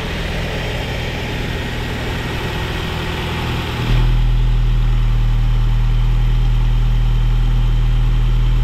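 Toyota Vios four-cylinder engine idling steadily without the valve 'typewriter' ticking, now that oil reaches the cylinder head again. About four seconds in the engine sound gets suddenly louder and deeper, then holds steady.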